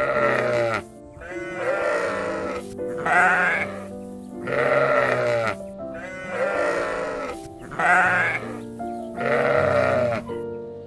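Sheep bleating over and over, about seven wavering calls, each about a second long.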